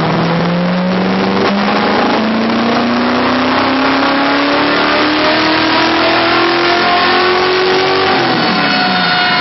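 Engine pulling under load, its pitch climbing smoothly and steadily for about eight seconds as the revs rise, then dropping quickly when the throttle is lifted near the end.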